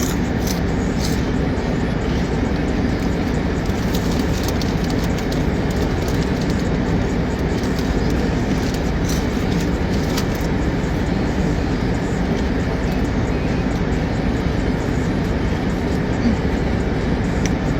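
Steady low rumbling noise, like a running vehicle, with a few faint clicks.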